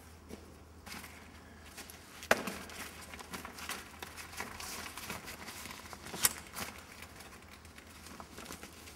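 Handling noises on a microlight trike's seat frame: rustling of straps and cables with scattered small clicks, and two sharp knocks about two seconds in and about six seconds in.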